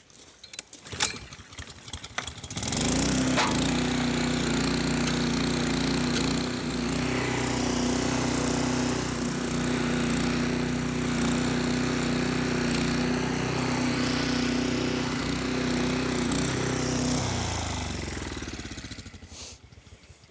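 Honda four-stroke engine on a petrol verticutter (lawn scarifier), pull-started with a few rattling tugs and catching about two and a half seconds in. It then runs steadily at working speed while the machine scarifies moss out of the lawn, and dies away near the end.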